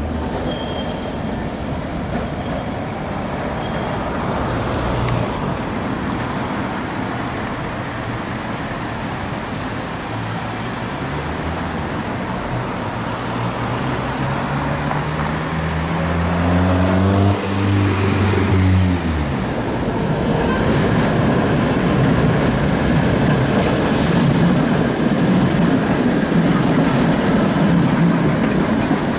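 Electric trams running on street track. About a third of the way in, a tram's traction motors whine, rising in pitch in steps for several seconds as it accelerates, then cut off. Near the end comes a louder rumble of an articulated Tatra KT8 tram rolling past close by on the rails.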